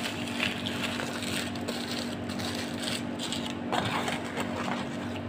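Foil-and-paper burger wrapper crinkling in short bursts as it is handled, over a steady low hum.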